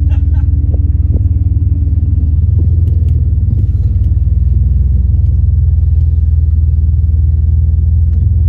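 1997 Chrysler Sebring's engine idling, a steady low hum with a fine even pulse, heard from inside the car's cabin.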